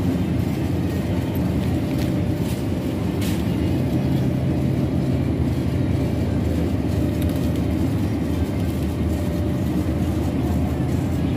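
Shopping cart rolling along a hard store floor: a steady low rumble from the wheels and wire basket, with a few light clicks in the first few seconds.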